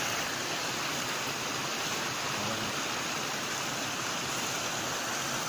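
Shallow stream rushing over flat rock slabs in a steady, even rush of water.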